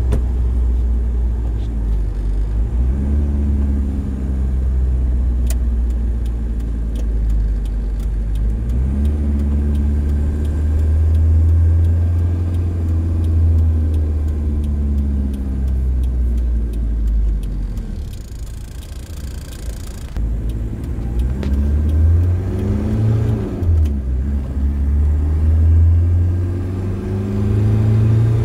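1993 Toyota Hilux engine heard from inside the cab while driving. The engine note climbs and drops again several times as it goes through the gears. It eases to a quieter spell about two-thirds of the way in, then climbs twice more as the truck pulls away.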